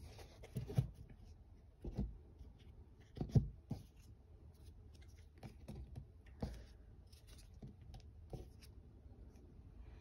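Tarot cards being handled on a cloth-covered tabletop: a deck shuffled and cards slid and laid down, heard as scattered soft taps and rustles, the loudest a little over three seconds in.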